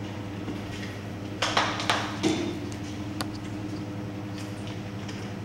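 A few short hissing squirts from a hand pump sprayer spraying cleaning chemical, about a second and a half in, followed by a couple of light clicks, over a steady machine hum.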